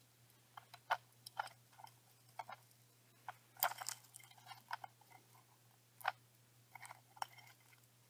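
Faint, scattered sharp clicks and scratchy taps as an Aphonopelma burica tarantula is fed, with the loudest cluster about three and a half seconds in, when the tarantula lunges out and seizes its prey.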